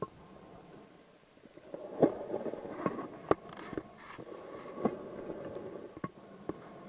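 About six sharp knocks at uneven intervals over a soft rushing noise.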